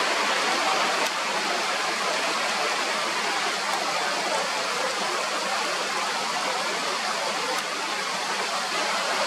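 Steady rush of water from the Dalbok Dol mountain river flowing through its marble rock arch.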